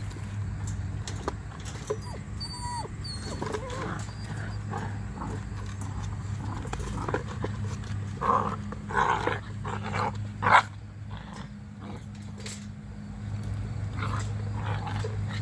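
Weimaraner puppies calling: a cluster of short yelps and whines in the middle, the loudest a sharp yelp about ten and a half seconds in, with a few fainter calls before and after, over a steady low hum.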